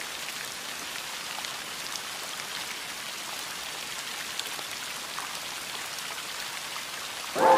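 Steady rain patter: an even hiss dotted with small drop ticks. A sustained chord of music comes in near the end.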